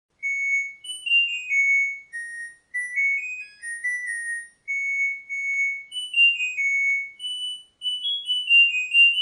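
A high-pitched electronic tune of single, clean notes stepping up and down in short phrases, like a simple ringtone melody.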